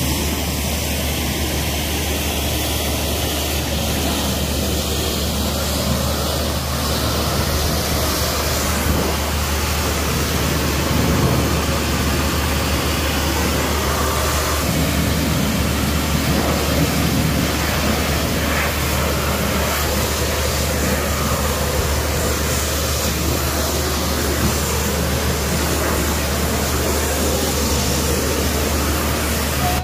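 Pressure washers running steadily: a constant low hum under a loud, even hiss of high-pressure water jets spraying onto the steel track and concrete, with no break until the sound cuts off abruptly at the end.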